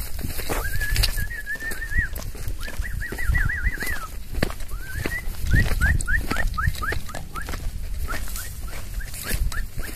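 Footsteps crunching through dry grass and brush, with a clear whistling over them: a held note about half a second in, a quick warble a few seconds later, then a run of short rising-and-falling whistles about twice a second.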